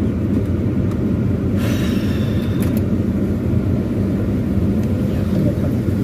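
Car engine idling steadily, heard from inside the cabin with the air conditioning running. A short rustling noise comes in about a second and a half in.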